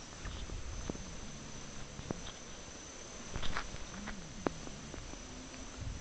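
Insects such as crickets keep up a steady high-pitched trill. A few faint sharp clicks and a short scratchy burst about three and a half seconds in sound over it.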